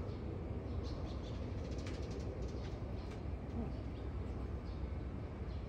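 Outdoor background noise: a steady low rumble with faint, brief high chirps and clicks scattered through the first half.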